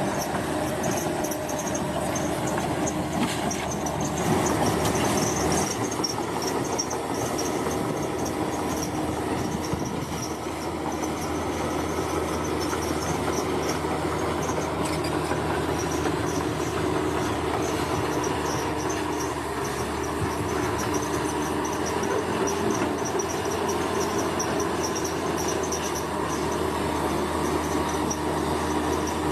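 Bulldozer at work: its diesel engine runs steadily, with a high squealing from the steel tracks.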